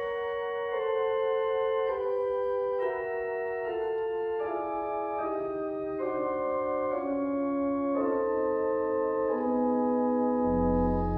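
Church organ playing slow sustained chords that change about once a second, the melody stepping downward; a deep bass pedal note comes in near the end.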